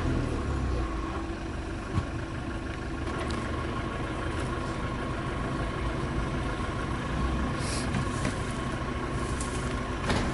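Steady low rumble of an idling vehicle, with a faint steady tone above it and a few short clicks.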